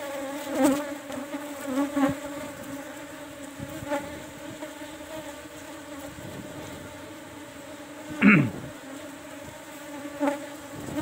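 A colony of Asian honeybees (Apis cerana) humming steadily in an open hive box. A few light knocks come from the wooden frames being handled, and there is a louder brief falling sweep about eight seconds in.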